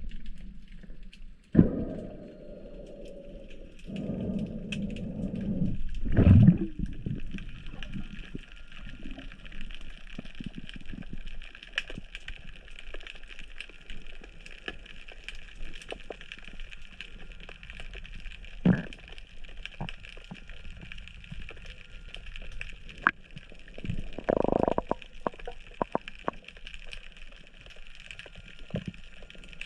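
Underwater sound on a spearfishing dive: a steady hiss full of small crackling clicks, with bursts of bubbling water, the loudest about four to six seconds in and again near the end.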